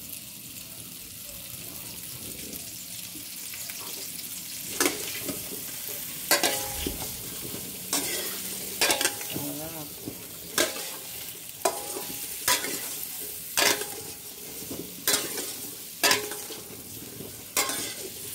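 Small boiled potatoes frying in butter in a stainless steel pan with a steady sizzle. From about five seconds in, a metal utensil scrapes and knocks against the pan roughly once a second as the potatoes are stirred.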